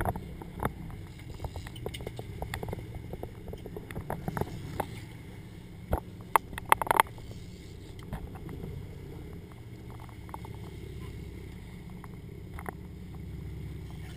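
A boat's engine running with a steady low rumble, with scattered sharp clicks and knocks on board, a quick cluster of them about six to seven seconds in.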